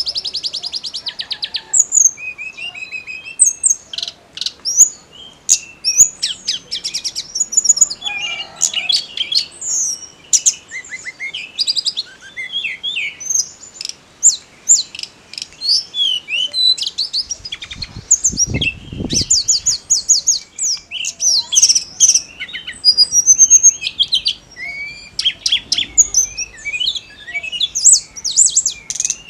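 Hill blue flycatcher (tledekan gunung) singing hard: a fast, unbroken run of high, varied chirps, whistles and trills, with a brief low rumble about eighteen seconds in.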